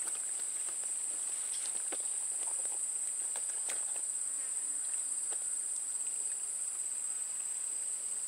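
Steady, high-pitched insect drone, one unbroken shrill tone, with a few faint clicks.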